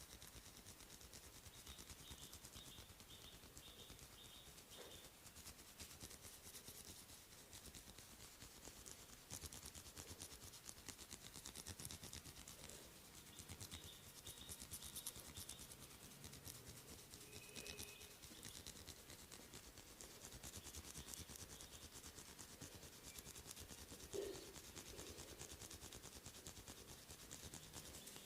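Faint, dense scratchy rubbing of hands working over skin and hair in a head and ear massage, a continuous stream of quick fine strokes.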